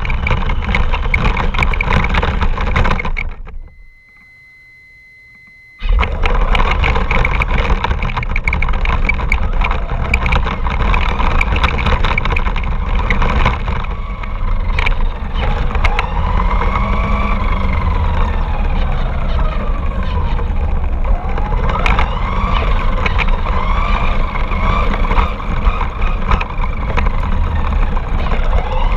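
Radio-controlled car driving, heard from a camera riding on it: a loud, rough rumble of the wheels over the ground, with the motor's whine rising and falling as the throttle changes. A few seconds in, the sound cuts out for about two seconds, leaving only a faint steady tone, then comes back.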